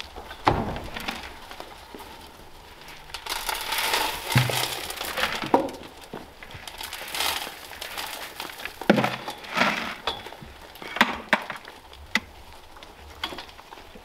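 Goats eating grain at a metal feed trough while feed is poured in from a metal can: irregular crunching, clinks and rattles.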